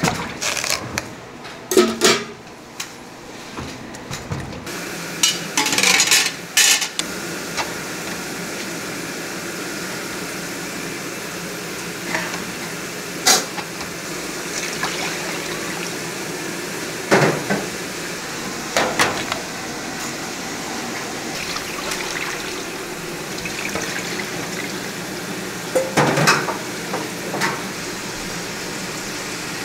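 Stainless-steel kitchenware clanking and scraping while a perforated metal plate is set into a steel pot and water is ladled into a wide, shallow steel pan. Sharp metal clanks come at intervals over a steady hiss.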